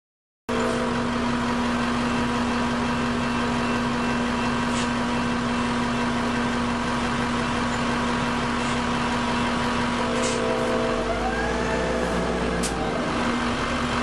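Steady hum of an idling vehicle engine, starting abruptly about half a second in, with a constant low drone and an even level throughout.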